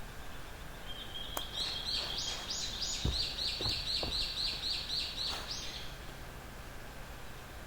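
A songbird singing a rapid run of repeated high chirping notes, about three to four a second, for around five seconds. A few dull knocks sound in the middle of the song.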